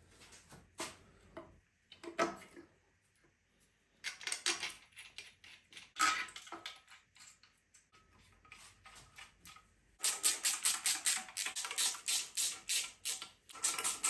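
Scattered metal clinks and knocks as an oil pump is offered up to a BMW S38 engine block. About ten seconds in, a hand ratchet starts clicking rapidly in quick strokes, four or five a second, as the pump's bolts are run in.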